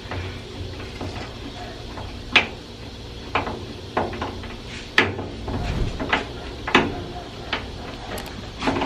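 Irregular sharp clicks and knocks, about eight in all, with a brief low rumble about halfway through, from an old microwave oven being taken apart by hand, its parts being worked loose.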